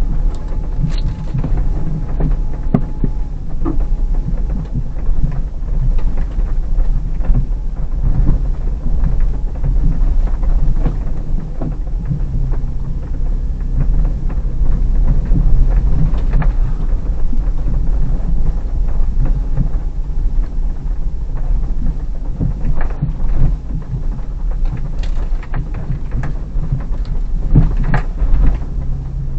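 Hyundai Terracan's 3.5 V6 heard from inside the cabin, a low steady drone while the SUV crawls along a snowy track, with the tyres rumbling over snow and scattered knocks and rattles from the uneven ground.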